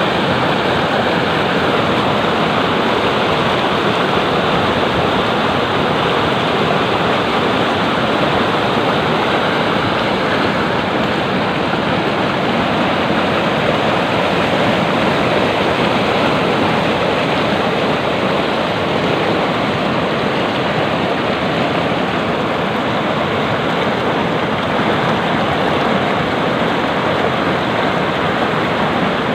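Fast-running hill stream, water rushing steadily over rocks.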